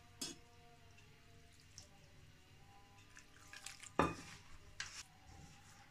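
Hands mixing flour and chopped fenugreek leaves into dough in a stainless steel bowl: soft rubbing with a few sharp knocks against the steel, the loudest about four seconds in.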